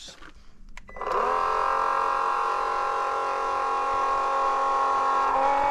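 Electric oil transfer pump switched on about a second in, then running steadily with a whine as it pumps oil from a bucket through a long hose into the bulldozer's oil fill. Its pitch dips slightly near the end.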